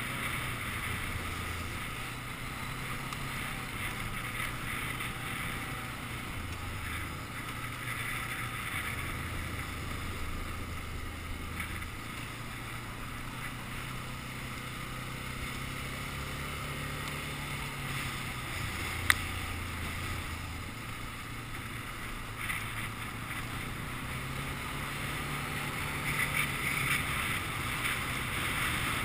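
Quad (ATV) engine running as it rides a rough gravel track, a steady low drone that shifts up and down in pitch every few seconds with the throttle, over a constant hiss of tyre and wind noise. A single sharp click about 19 seconds in.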